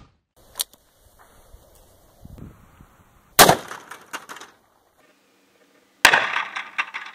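Gunshots from a .357 Magnum revolver, a 4-inch S&W Model 13 firing 158-grain jacketed soft points. Two sharp cracks come about three and a half and six seconds in. The second is followed by about a second of scattered clicks and rattle.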